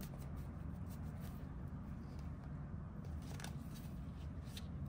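Oracle cards handled in the hands: quiet sliding of cardstock with a few light clicks of card against card, over a low steady hum.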